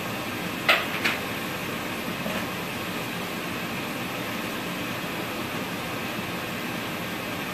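Kitchen exhaust fan running with a steady whooshing hum, loud enough to cover a voice. Two sharp knocks about a second in.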